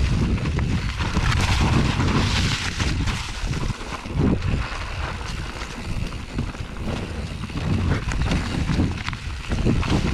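Canyon Torque AL 6.0 mountain bike riding over a rough trail: a steady low wind rumble on the microphone, tyre noise, and frequent knocks and rattles from the bike.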